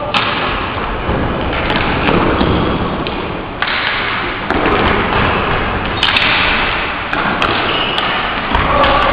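Floor hockey in a gym: thuds and clacks of sticks, ball and players' feet on the hard floor, over a steady echoing hall noise.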